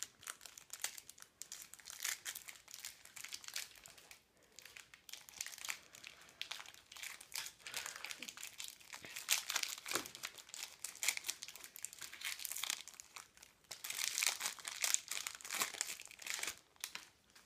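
A foil trading-card packet being crinkled and opened by hand: a dense, irregular crackle that is loudest near the end.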